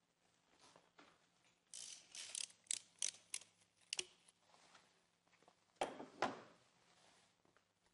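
Spark plug socket and extension turned in the plug well of a VW 2.0 TSI Gen3 engine to loosen and remove the cylinder-one spark plug: faint ratcheting and metal-on-metal clicks, a quick cluster about two seconds in, then a few single clicks, the loudest two near six seconds.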